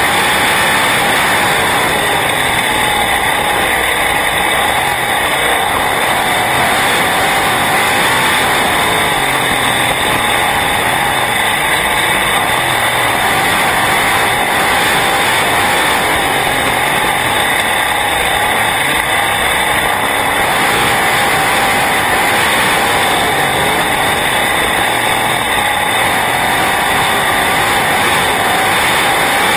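Sprint car V8 engine running at racing speed, heard from inside the cockpit: a loud, steady drone with little change in pitch.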